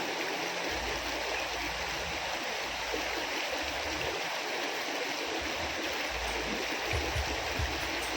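A small river flowing, a steady rush of water.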